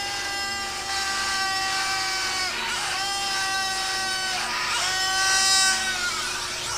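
A football commentator's goal call: three long, high-pitched held shouts, each sustained for one to two and a half seconds with short breaks between. The last is the loudest. A faint steady hum sits underneath.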